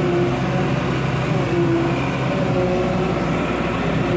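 Tractor engine running steadily during silage harvesting, heard from inside the cab: a constant low drone with a few tones that waver slightly in pitch.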